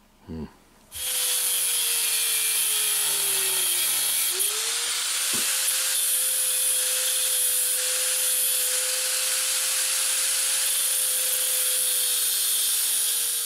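Angle grinder cutting the metal collar off a router base, starting about a second in. The motor's whine sags as the disc bites, about three to four seconds in, then recovers and holds steady under a continuous grinding noise until it winds down at the end.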